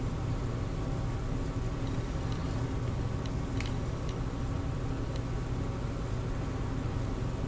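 Steady low background hum in a small room, with a few faint light ticks about two to four seconds in.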